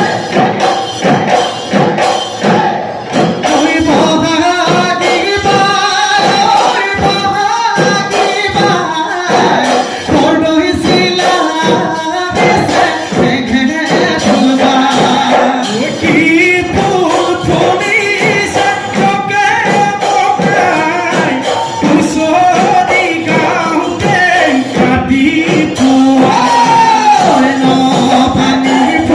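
Bihu husori: men singing together to fast, steady beats on several Assamese dhol drums.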